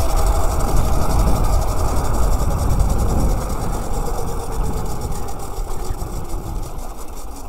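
Kunray 72-volt 3000-watt electric mini bike riding and slowing down: a faint motor whine slowly falls in pitch as the speed drops, over tyre rumble on asphalt and heavy wind buffeting on the microphone. The sound eases off a little toward the end.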